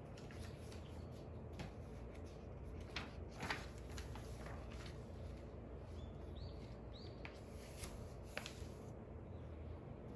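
Quiet desk sounds of study: scattered paper rustles and light taps over a low room hum. Two short bird chirps come about six and seven seconds in.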